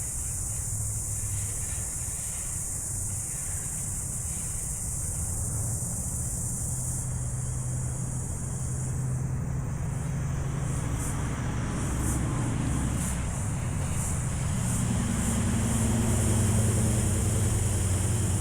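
Low steady rumble of motor traffic, growing louder in the second half, under a constant high-pitched hiss.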